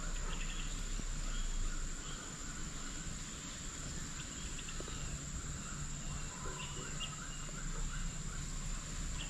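Tropical forest insect chorus: a steady high-pitched insect drone with a rapidly pulsing lower chirping beneath it, and a few short chirps here and there.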